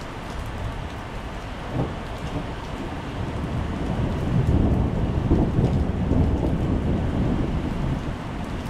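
Heavy rain falling steadily onto wet paving tiles, with a deep rumble of thunder swelling up about halfway through and rolling for a few seconds before easing.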